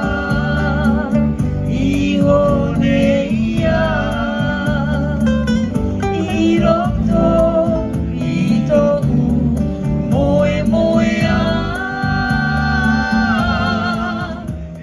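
Live band playing a song: singing over acoustic guitar and keyboard, with a steady beat in the bass.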